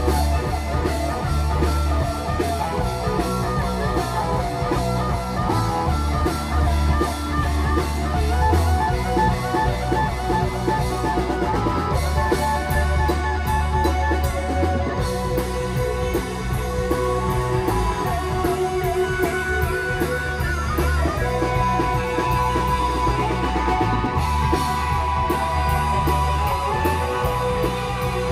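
Live rock band playing: electric guitar over a drum kit, with a strong low bass line coming and going in blocks.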